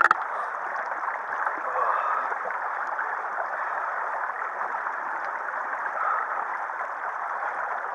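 Small mountain stream running over rocks, a steady rush of water.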